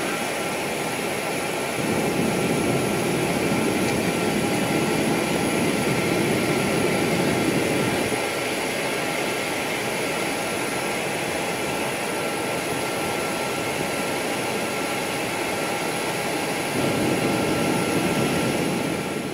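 Jet airliner's engines running during a ground engine run-up: a steady rushing jet noise with a thin, steady high whine, a little louder about two seconds in and again near the end.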